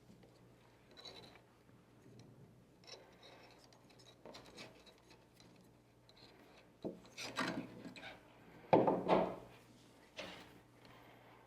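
Bowstring being worked off a compound bow's cams: the string rubbing and scraping against the cams and limbs in a series of short, uneven strokes, louder in the second half.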